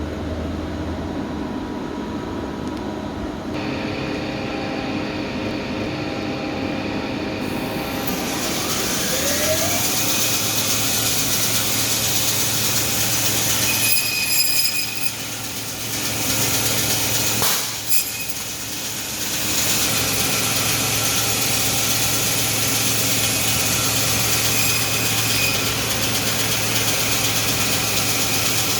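Guardian bandsaw, a meat-cutting bandsaw, spinning up with a rising whine about nine seconds in, then running steadily while cutting poultry; the sound dips briefly twice around the middle.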